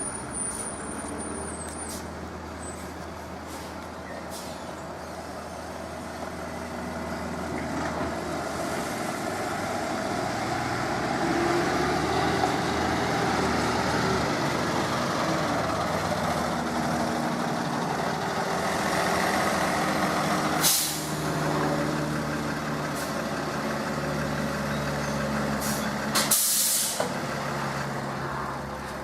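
Truck engine running, with two short air-brake hisses in the second half.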